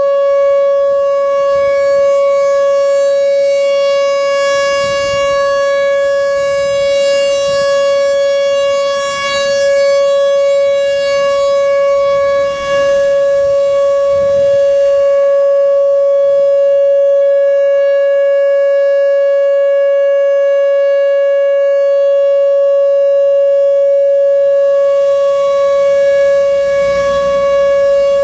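Whelen Vortex R4 outdoor warning siren sounding its steady Alert signal: one loud, unbroken tone held at a single pitch, its upper overtones swelling and fading over several seconds.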